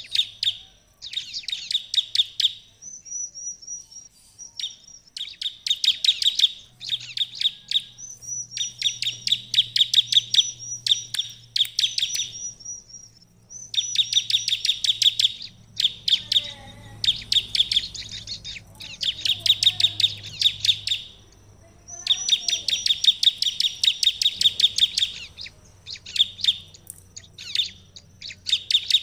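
Bar-winged prinia (ciblek) singing vigorously: bouts of very fast, sharp, high chipping notes, each one to three seconds long with brief pauses between. A thin high held note sounds between some bouts.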